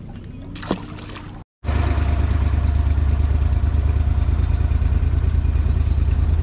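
Boat under outboard power at speed: a loud, steady low engine drone mixed with wind and water rush. It starts suddenly after a brief gap about a second and a half in, preceded by quieter ambience with a single tick.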